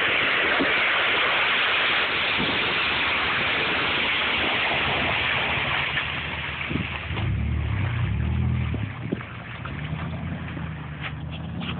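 Off-road vehicles driving in a mud pit. A loud steady rushing noise fills the first half. It eases off about six seconds in, and a vehicle's engine is then heard revving up and down, with a few sharp clicks near the end.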